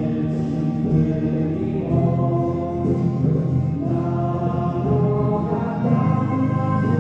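Slow church hymn: voices singing long held notes with instrumental accompaniment, the chord changing about every two seconds.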